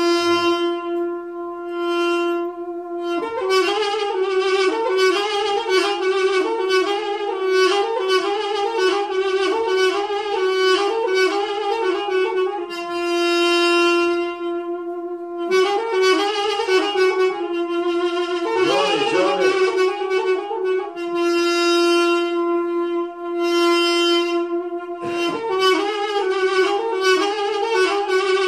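Instrumental music: a solo wind instrument plays a slow melody, with long held notes between runs of quicker notes.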